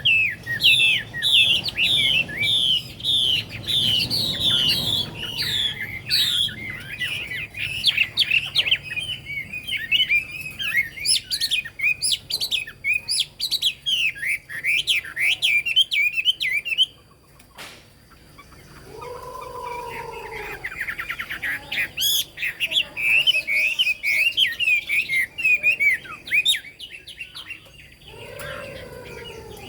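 Chinese hwamei (Garrulax canorus) singing a loud, fast, high-pitched run of trills and warbles that breaks off briefly about halfway through and then resumes. Twice in the second half a lower, falling call sounds.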